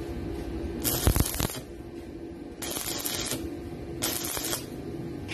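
Electric arc welding on a steel plate: four short bursts of crackling, each about half a second long, over a steady low hum. A low thump comes with the second burst.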